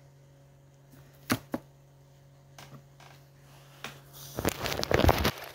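Handling noise from the phone that is filming: a faint steady hum with two sharp clicks a little over a second in, then from about four and a half seconds dense rustling and knocking on the microphone as the phone is picked up and moved.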